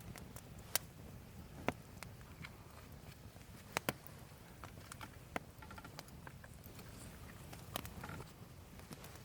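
Firewood burning in a fire stand, crackling with irregular sharp pops over a low steady rumble.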